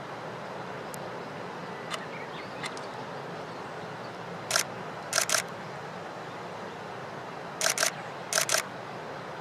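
SLR camera shutter firing in short bursts: a single click about four and a half seconds in, a quick double click just after, then two more quick double clicks about three seconds later, over a steady background hiss.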